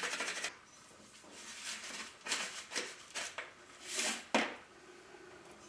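Fine sea salt shaken from a canister onto a raw beef roast in an enamelled cast-iron pot, a dense grainy hiss that stops about half a second in. Then come soft, scattered swishes of salt sprinkled by hand, with one sharp tap about four and a half seconds in.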